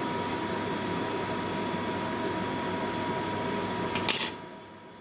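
Steady hiss and hum of kitchen room noise with a faint steady whine. About four seconds in comes one short, sharp noise, after which the background drops abruptly to much quieter.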